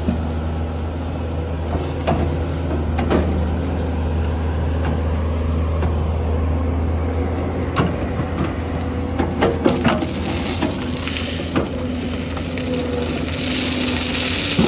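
Tracked excavator's diesel engine running steadily while its steel bucket scrapes and scoops crushed stone chips, with several sharp knocks of metal on stone. Near the end a load of gravel pours rattling out of the bucket.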